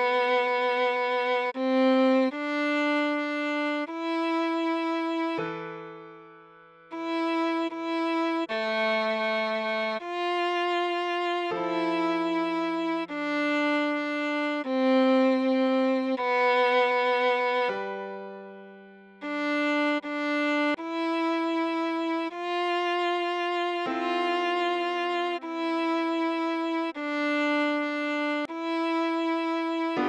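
Viola playing a slow melody one bowed note at a time, at half tempo, with lower held notes sounding under some phrases. The line fades away twice, about six seconds in and about eighteen seconds in, each time before the next phrase begins.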